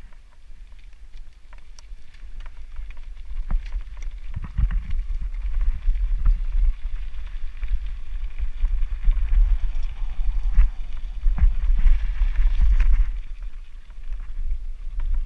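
Wind rumbling on the camera's microphone as a mountain bike rolls down a rough dirt trail, with scattered clicks and rattles from the bike over the bumps. The rumble grows louder about four seconds in and eases off near the end.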